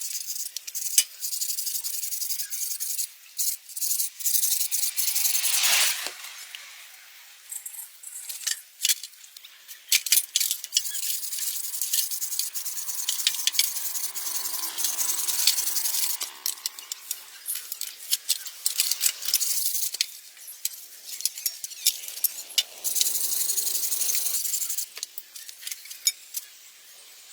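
Hand work on metal truck-axle parts: repeated clinks and rattles of metal pieces and tools, with stretches of rubbing or scraping noise.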